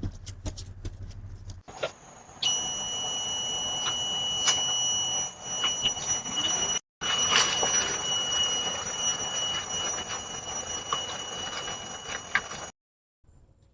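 A continuous high-pitched alarm tone, like a security-alarm siren, sounds steadily over scattered clicks and knocks, through a doorbell camera's microphone. It breaks off for an instant near the middle and stops shortly before the end.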